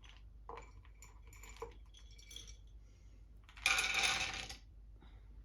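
Dry dog food kibble clattering into a metal bowl: one rattling pour of about a second, starting a little past halfway, after a few faint clicks.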